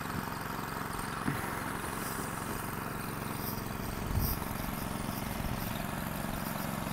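An engine idling steadily with a low, even hum, with a small knock about a second in and a brief louder bump about four seconds in.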